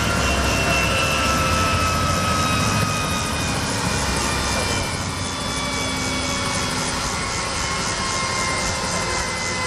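Eurocopter MH-65 Dolphin helicopter hovering low before touchdown: the main-rotor beat under the whine of its twin turbine engines. The whine slowly falls in pitch.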